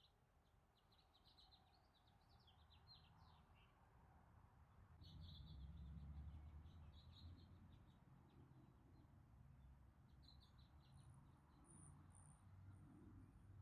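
Near silence with faint birds chirping in short rapid runs, a higher thin series of notes near the end, over a low background rumble that swells about five seconds in.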